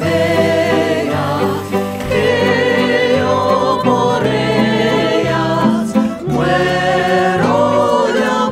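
Background music with singing voices holding long, wavering notes over slowly changing chords.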